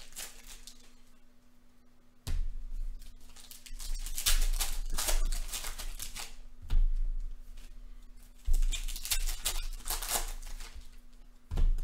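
A trading card pack's wrapper crinkling and cards rustling and sliding against each other as they are handled, in irregular bursts, with a few dull thumps.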